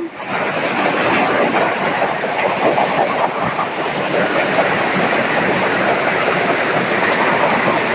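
Heavy rain falling close by, a loud steady rushing hiss with dense patter.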